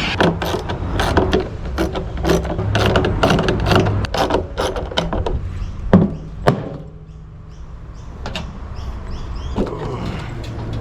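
Metal washing-machine parts knocking and clattering as they are handled and pulled apart, a quick run of sharp knocks for about six seconds, then much quieter with a few scattered knocks near the end.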